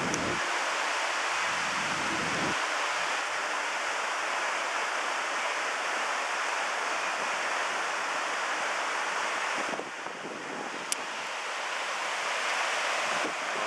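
Shallow, boulder-strewn river rapids rushing steadily over rocks. A single sharp click about eleven seconds in.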